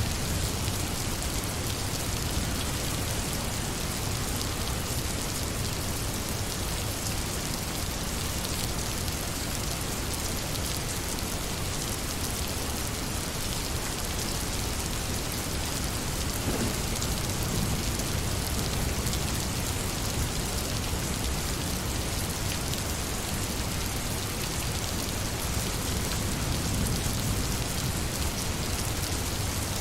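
Steady rain falling on a surface, an even hiss of drops with a low rumble underneath.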